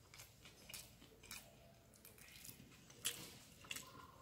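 A person chewing a mouthful of rice, with faint, scattered wet mouth clicks and smacks; the loudest smack comes about three seconds in.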